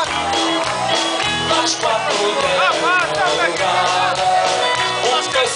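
Live band playing dance music at high volume: a singer's wavering notes over a steady, repeating bass beat.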